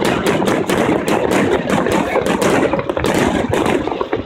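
Aerial fireworks display bursting overhead: a rapid, unbroken string of sharp bangs and crackling pops, several a second.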